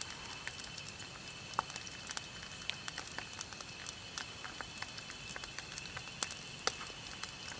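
Eel pieces deep-frying in hot oil, which crackles and spits in irregular sharp pops, a few of them louder than the rest.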